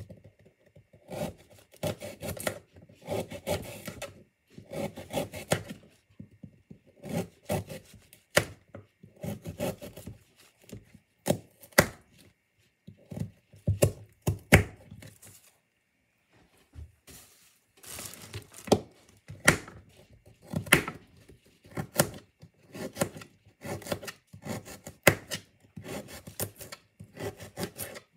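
A kitchen knife cutting carrots on a cutting board: irregular sawing strokes and sharp knocks of the blade striking the board, with a short pause a little past halfway.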